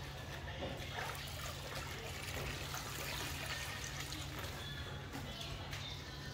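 Water splashing and trickling in a plastic basin as a small child's hands move toy trucks through it, with small irregular splashes.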